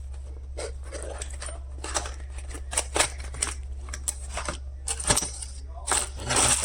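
Small multi-tool accessories and their packaging being handled: a string of irregular clicks, taps and rattles, growing busier near the end.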